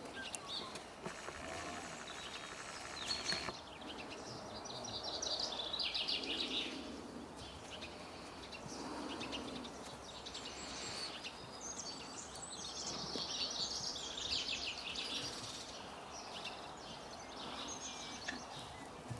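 Songbirds singing in several short phrases of rapid chirping notes over steady outdoor background noise.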